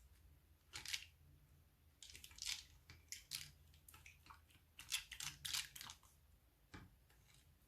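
Short, irregular bursts of crackling and crinkling from the materials being handled while making slime, with a single tick near the end.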